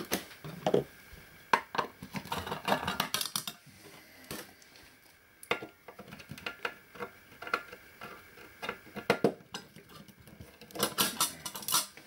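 Irregular metallic clinks, knocks and scrapes as the metal chassis of an avionics radio module and its screwed-on aluminium cover panel are handled and shifted on a concrete floor, with clusters of clatter around three seconds in and again near the end.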